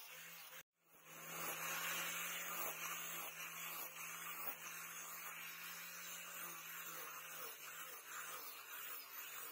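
Angle grinder with a sanding pad running against a wooden knife handle: a steady motor whine with the rasp of sanding. The sound cuts out briefly under a second in, then swells back and runs steadily.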